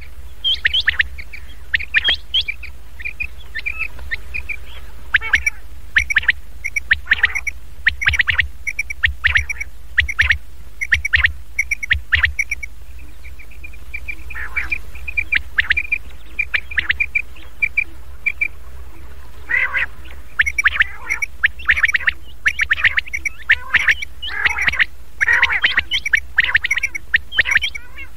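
Recorded common quail calls played as a lure to draw quail in: quick series of short, high chirping notes mixed with harsh rasping krrk notes, over a steady low hum.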